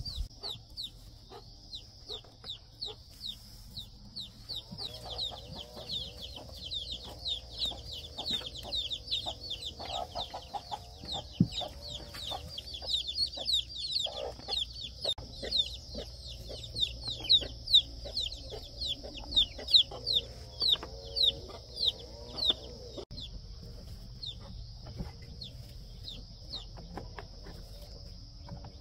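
Chickens clucking, over a long run of short, high, falling chirps repeating several times a second and a steady high hiss. Dry straw rustles and a few sharp clicks come as eggs are picked out of a straw nest.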